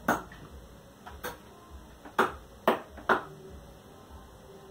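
A series of about seven sharp, irregular clicks, with three loud ones about half a second apart near the middle.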